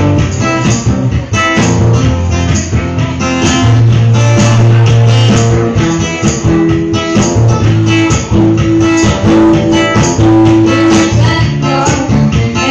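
Live acoustic music: guitars strummed in a steady rhythm, with low notes held underneath.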